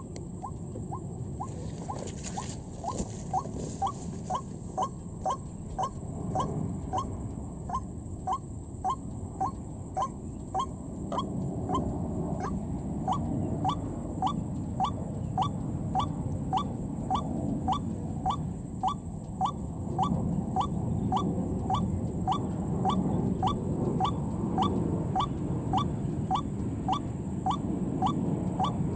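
White-breasted waterhen calling, a monotonous series of short upward-sweeping notes about two a second, the kind of call used as a lure for trapping the bird. A steady low rushing noise sits underneath and grows louder partway through.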